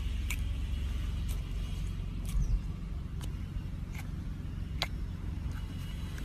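Slime being squeezed and worked by hand, giving sharp little clicks and pops of trapped air about once a second, over a steady low hum.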